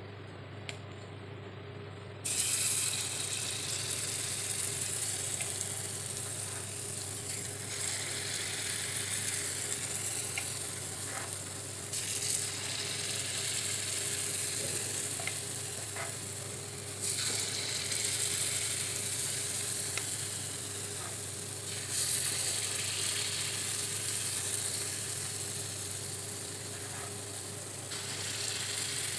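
Paniyaram batter sizzling in hot oil as it is poured into the wells of a paniyaram pan. The sizzling starts suddenly about two seconds in and swells again each time another well is filled.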